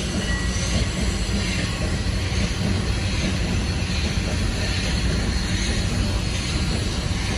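Steam locomotive standing on a gallows turntable: a steady low rumble with an even hiss over it, no distinct strokes or tones.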